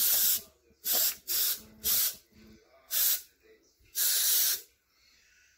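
A spray gun applying blue coating to a hanging part, hissing in six short trigger bursts, the longest near the end.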